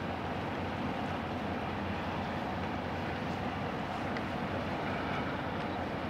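Steady low rumble and rush of the car ferry Suzuran's engines and machinery as the ship passes. The sound is even throughout, with no separate knocks or tones.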